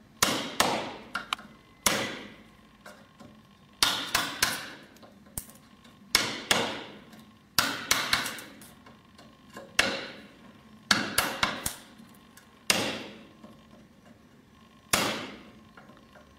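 A wood chisel struck again and again as it is driven into old elm to chop out a joint. The blows come in groups of one to three, about every two seconds, each a sharp crack with a short ring.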